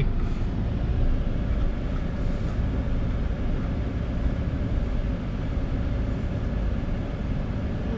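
Steady low rumble of a pickup truck driving, its engine and tyre noise heard from inside the cab.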